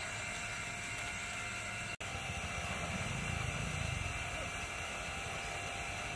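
Steady background hiss with faint constant hum tones, briefly cutting out about two seconds in.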